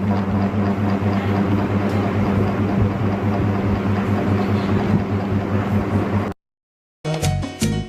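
A loud, low droning hum with a fast pulsing throb. It cuts off abruptly about six seconds in, and after a short gap it gives way to choppy, chopped-up rhythmic beats near the end.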